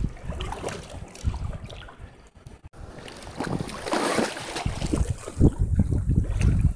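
Wind buffeting the microphone over water sounds from an inflatable kayak. About four seconds in comes a splash as a snorkeler slides over the kayak's side into the water.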